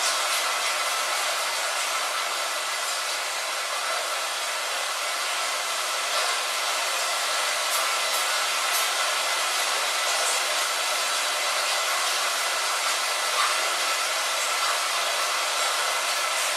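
Rain against a window: a steady hiss with a few faint ticks of single drops scattered through it.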